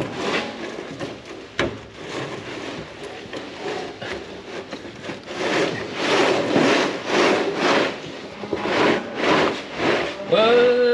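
Feeder wagon's conveyor belt being pushed and dragged by hand along the steel floor of the wagon bed, a run of rough scraping strokes that grow louder about halfway through.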